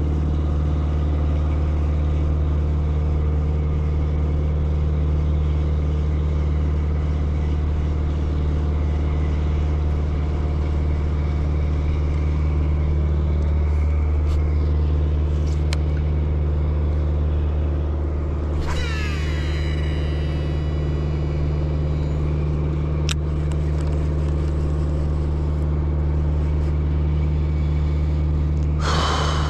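Steady low drone throughout. About two-thirds of the way in, a 2016 Shimano Antares DC baitcasting reel is cast: its spool whines, the pitch falling as it spins down under the reel's electronic DC brake. A brief rustle comes just before the end.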